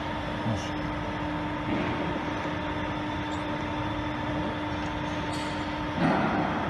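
Weiler Commodor metal lathe running with a steady mechanical hum and whir. About six seconds in, a short, louder burst of noise interrupts the hum.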